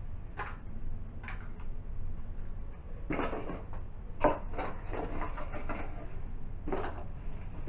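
Irregular rustles, clicks and light knocks as green glass nesting bowls are handled and bits of paper packaging are peeled off them, busiest in the middle.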